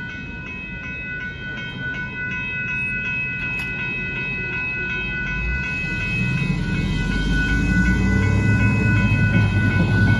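Railroad crossing bell ringing rapidly and steadily while the crossing gates rise, over a low rumble. In the last few seconds, road vehicle engines grow louder as traffic starts across the tracks.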